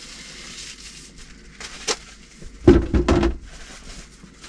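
A plastic rubbish bag rustling as it is pulled out and shaken open, with a sharp click and then a short run of dull thumps a little over halfway through.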